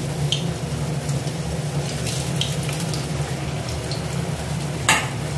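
Vegetable balls deep-frying in hot oil in a wok: a steady sizzle with faint crackles, and one sharp clink near the end.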